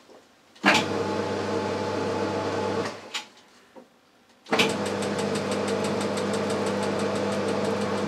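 Boxford lathe's 240-volt electric motor started with a click of its repaired forward and reverse switch, running steadily for about two seconds, then switched off and winding down. About a second and a half later it is switched on again and keeps running: the rebuilt switch is starting and stopping the motor.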